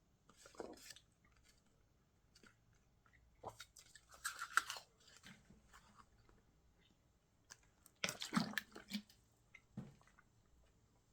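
A person chewing a paper picture with the mouth close to the microphone, in a few short bouts of crunchy chewing: about half a second in, around four seconds in, and again around eight to nine seconds in.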